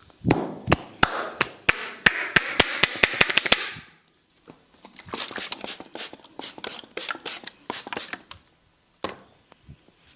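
A barber's hands slapping and tapping on a client's head in a quick rhythmic run that speeds up, then stops about four seconds in. After a short pause comes a second, softer run of slapping strokes with a rustle of hair and skin.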